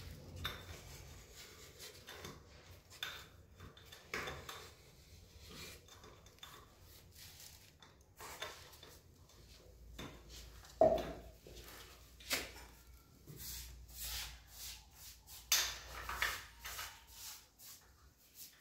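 Faint, intermittent rubbing and scraping with scattered clicks, from hands working cement around the base of a ceramic toilet pan on floor tiles; a sharper knock comes just before eleven seconds in.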